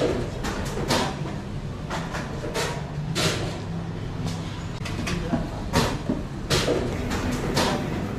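A steady low mechanical hum with irregular knocks and clacks, several times over.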